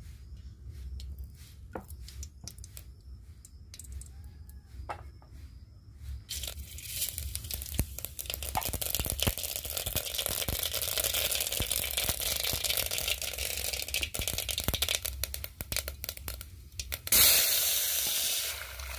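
A few faint clicks and knocks, then from about six seconds in, hot oil tempering green leaves in an aluminium pot on a gas stove, sizzling and crackling steadily (a tadka). Near the end a sudden, louder hiss as liquid goes into the hot pot.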